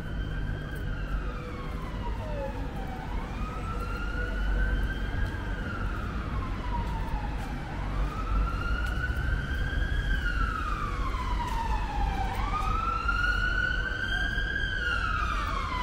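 Emergency vehicle siren in a slow wail, its pitch rising and falling in long sweeps about every four to five seconds, over a low, steady rumble of city traffic.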